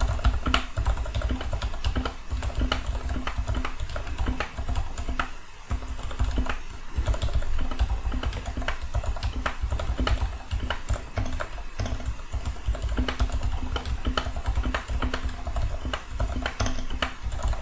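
Fast, continuous typing on a custom mechanical keyboard with lubed switches: a dense run of keystroke clicks and soft bottom-out thuds, easing off briefly about five and a half seconds in. A faint steady hum sits under it.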